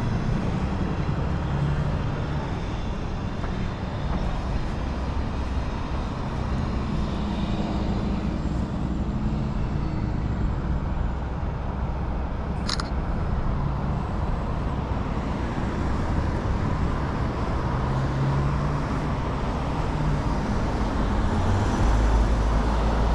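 Steady traffic noise from cars driving past on a multi-lane road, with engine and tyre rumble rising and falling as vehicles go by.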